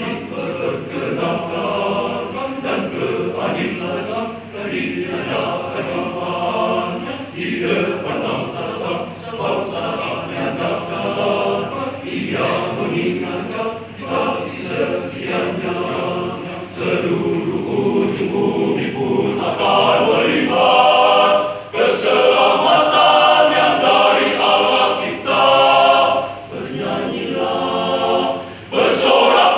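Men's church choir singing together, swelling noticeably louder about two-thirds of the way through.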